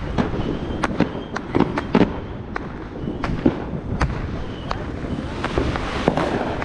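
Fireworks and firecrackers going off all around: a continuous, irregular crackle of sharp pops and bangs, several a second, with no pause.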